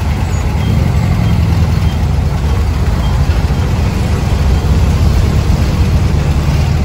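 Dune buggy engine running steadily at low cruising speed, heard from on board as a constant low drone.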